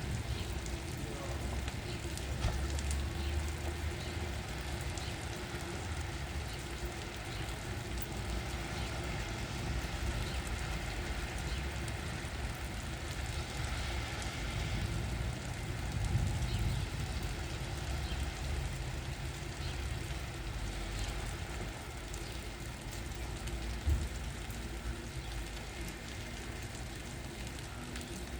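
Steady rain falling, with a low rumble underneath that rises and falls, and a single sharp tap near the end.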